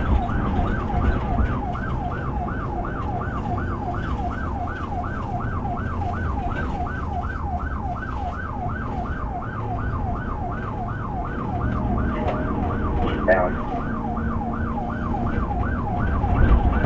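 Police cruiser's electronic siren in fast yelp mode, sweeping up and down about three times a second, heard from inside the car. A steady rumble of engine and road noise runs underneath.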